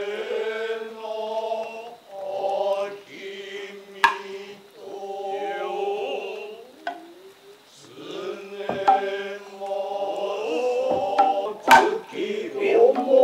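Noh music: long, drawn-out male chanting on held notes, broken by a few sharp strikes on tsuzumi hourglass hand drums.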